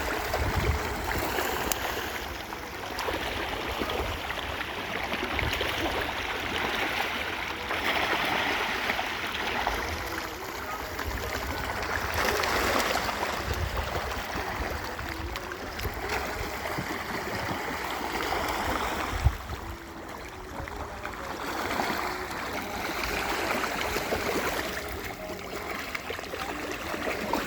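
Pond water churning and splashing as fish feed at the surface, a rushing noise that swells and eases every few seconds, with a low rumble underneath.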